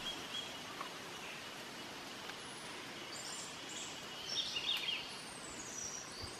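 Forest ambience: a steady low hiss with a few high bird chirps, grouped about four to five seconds in, one call gliding down in pitch near the end.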